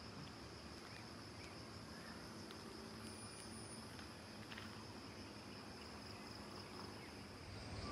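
Faint, steady high-pitched chirring of insects over a low background hiss, with a brief higher note joining about three seconds in.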